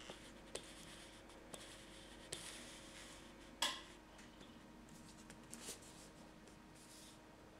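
Hands handling and turning a cardboard product box: faint rubbing and sliding with a few light taps, the sharpest about three and a half seconds in.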